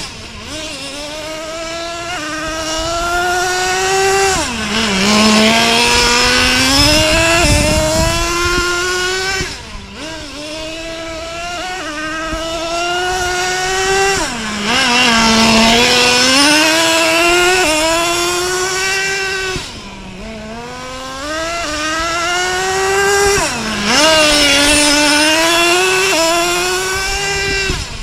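Traxxas T-Maxx nitro RC truck's small two-stroke glow engine running hard with a high buzz, its pitch climbing steadily over several seconds and then dropping sharply, about five times over.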